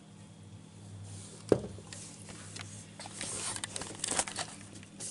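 Handling noise: a single sharp knock about a second and a half in, then rustling and crinkling with light clicks, over a faint steady low hum.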